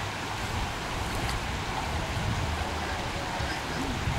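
Floodwater running across a flooded street in a steady rushing wash, with a low uneven rumble underneath.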